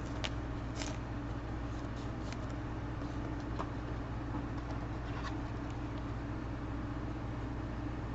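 Steady low hum of background noise with a few faint light clicks and taps, typical of trading cards and card holders being handled.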